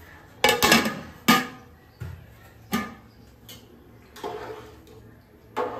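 Stainless-steel kitchenware clinking and knocking: a steel tumbler and a long steel ladle striking steel cooking pots, several sharp metallic knocks, then the ladle scraping and tapping as it stirs a pot of parboiling rice.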